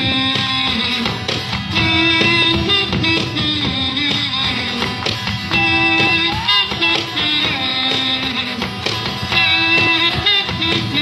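Live music from a duo: strummed guitar with a held melody line over it, in repeating phrases.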